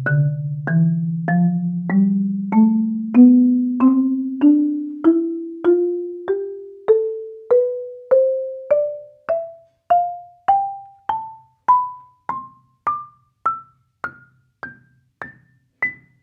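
Marimba played one note at a time up an ascending scale, about one note every 0.6 s, climbing from the low register to the top of the instrument; the low bars ring on for a while and the high ones die away quickly. Raw, unprocessed recording from a microphone placed under the instrument.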